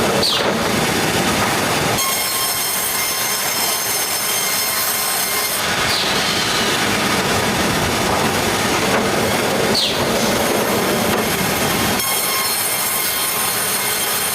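Sawmill blade cutting through a log: a loud, continuous machine noise with a steady high whine, and a brief falling squeal three times, near the start, about six seconds in and about ten seconds in. The tone of the noise changes abruptly about two, six and twelve seconds in.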